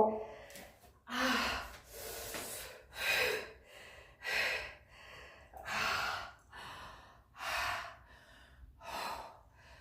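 A person breathing heavily, with loud in-and-out breaths about every second and a half.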